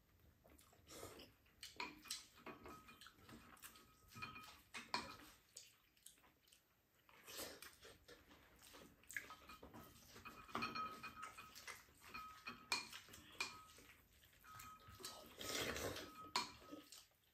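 Quiet mealtime sounds: spoons and chopsticks clicking against ceramic bowls, with chewing and slurping from a spoon, the loudest slurp about sixteen seconds in.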